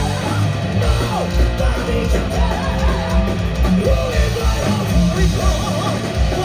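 Live rock band playing loud, with a steady kick-drum beat about three times a second and a voice singing and yelling over it.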